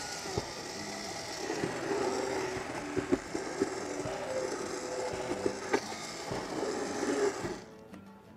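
Handheld immersion (stick) blender running in a large stainless stockpot, puréeing thick, chunky acorn squash soup; a steady motor whir with a few sharp knocks along the way. The sound drops off sharply near the end.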